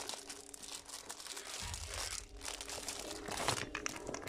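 Clear plastic wrapping and a plastic zip pouch crinkling and rustling as they are handled, in irregular crackles.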